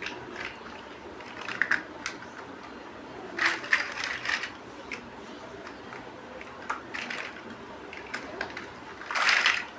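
Plastic Lego bricks being handled and pressed together: scattered sharp clicks and short rattles at an uneven pace, with a longer clatter of pieces about nine seconds in.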